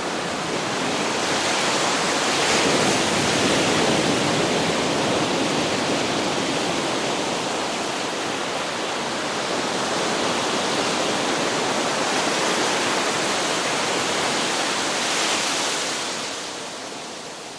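Ocean surf on a beach: a steady rush of waves that swells about three seconds in and again near the end, then begins to fade out.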